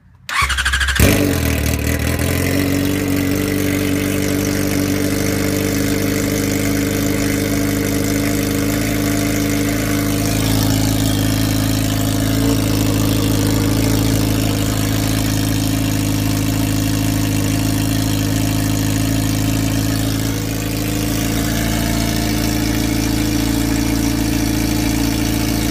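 2004 Yamaha R6's 600cc inline-four cold-started with the muffler removed, running straight out of the stock header: the starter turns it briefly, it catches about a second in and settles into a steady, loud idle. The idle swells slightly around the middle and dips briefly about three-quarters through.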